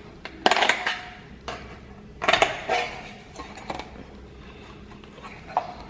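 Thin steel drywall profile clinking and clattering as it is handled and worked: a string of sharp, irregular metallic clinks and knocks, with the loudest about half a second and two and a half seconds in.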